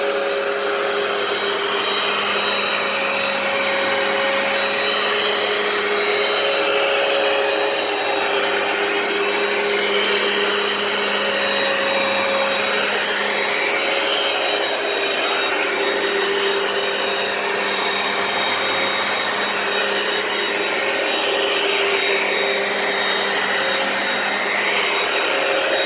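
Hoover PowerDash compact carpet cleaner running, its motor and suction giving a loud steady drone with a higher whine that wavers up and down. It cuts off right at the end.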